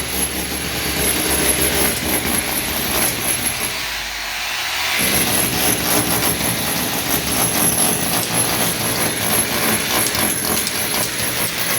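A machine or engine running steadily, with a thin high whine that drops out for about a second near the middle.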